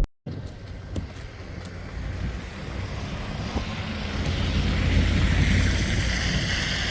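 Wind buffeting the microphone in a snowstorm: a rushing noise with a low rumble that grows louder over the first five seconds, with a few faint clicks about a second in.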